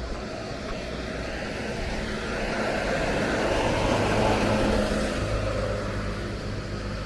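A car driving past, its engine and tyre noise growing louder to a peak about four seconds in and then fading away.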